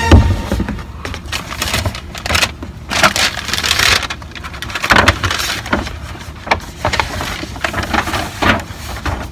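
White tissue paper in a sneaker box being unfolded and crumpled by hand, rustling and crackling in irregular bursts.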